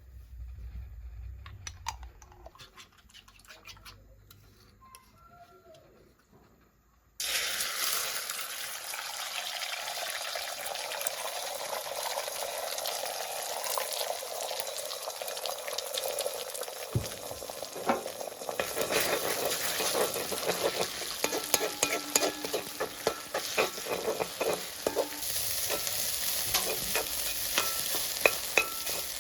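Food hits hot oil in a pan about seven seconds in and starts sizzling loudly. The sizzle carries on while a spatula stirs and scrapes the pan, with many quick clicks and scrapes in the second half. Before that there are only a few faint knocks.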